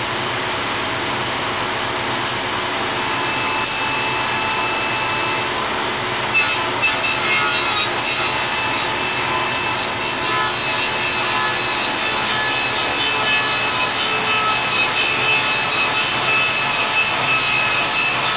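Vintage saw lathe (copy lathe) running steadily while it turns a hickory axe handle blank. About six seconds in, a couple of sharp knocks come as the cutting takes hold, and a louder wood-cutting noise joins the machine's hum from then on.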